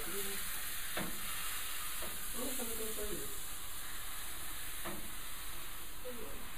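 Food sizzling as it fries in a pan on the stove, a steady hiss, with a couple of light knocks as it is stirred, about a second in and again near five seconds. Faint murmured voices come in briefly in the middle and near the end.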